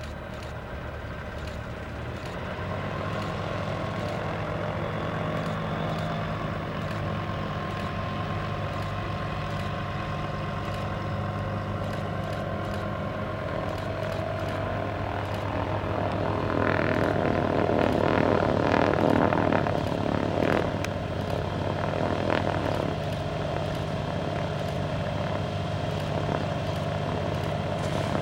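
Tecnam P2006T twin-engine propeller plane's piston engines running with a steady hum. It grows a little louder a few seconds in and swells louder for several seconds past the middle before settling back.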